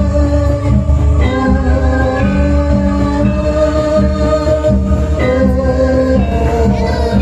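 Loud live music with singing: held pitched notes over a steady, repeating low beat, with a voice gliding through its notes near the end.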